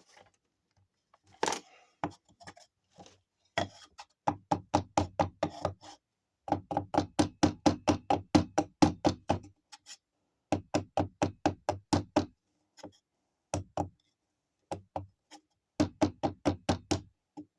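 Rapid hammer blows on a sterling silver ring sitting on a ring mandrel, truing the ring round. The strikes come about five a second in several runs with short pauses between them.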